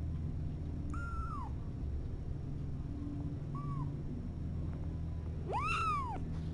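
Two- to three-week-old kittens mewing: three thin, high cries that rise and fall in pitch. A short one about a second in, a very brief one near four seconds, and a longer one near the end.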